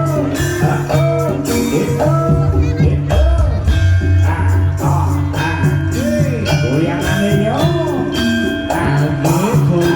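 Javanese jaranan music playing steadily: gamelan-style percussion and held low notes under a bending, ornamented melody line with singing.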